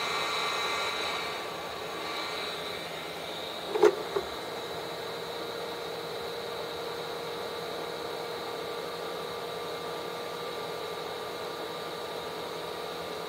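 Persder 858D hot air rework station's blower fan running steadily with a hiss and a faint whine. About four seconds in, a short knock as the hot air handle is set in its cradle; the fan keeps blowing to cool the heater while the temperature falls.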